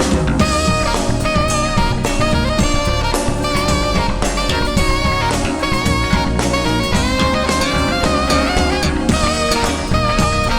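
Live band music: a drum kit keeps a steady beat under a sustained melodic lead line with vibrato.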